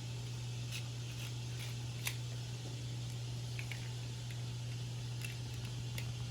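A steady low electrical hum with a few faint, scattered clicks from small plastic toys being handled.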